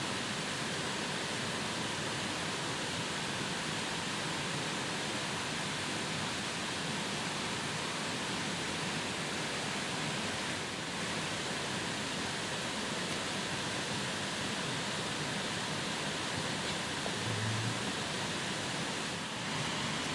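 Steady, even rushing noise with no distinct events, with a brief low hum about three-quarters of the way in.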